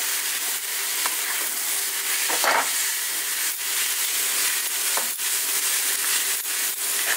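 Chow mein noodles and vegetables sizzling in hot oil in a metal kadhai on a high flame, stirred and tossed with a wooden spatula, with a few brief knocks of the spatula against the pan.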